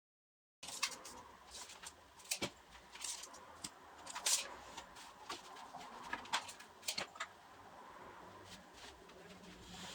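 Wooden workpieces and tools being handled on a workbench: irregular light clicks and knocks, starting about half a second in.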